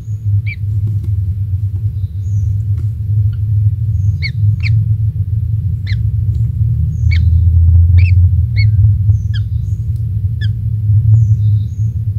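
Bird giving short, sharp chirps, about a dozen at irregular intervals, each sliding slightly down in pitch. A loud, steady low rumble runs underneath and swells in the middle.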